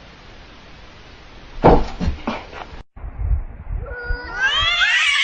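Domestic cat giving one long, drawn-out meow that rises and then falls in pitch, in the second half, after a few short bumps.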